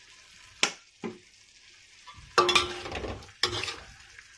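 A metal spoon stirring and scraping beef and onions around a wok over a faint sizzle. Two sharp clicks come early. Then, from about two seconds in and again near three and a half seconds, louder scraping clatter sets the pan ringing.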